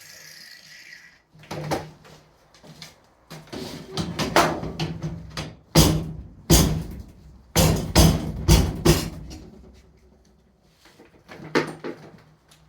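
Irregular metal knocks and bangs from steel hat channel and its backing insert being hammered and worked into place, loudest around the middle. A power tool's whine dies away about a second in.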